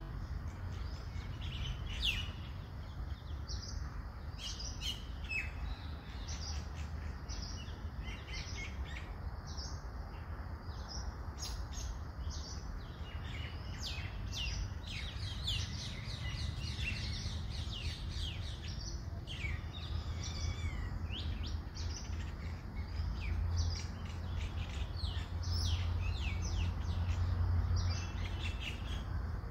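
Many small birds chirping and twittering in quick, overlapping calls throughout, over a steady low rumble.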